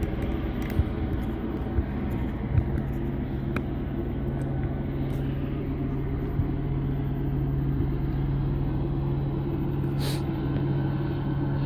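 Steady low engine drone with a constant hum that grows stronger about three seconds in, and a few faint clicks.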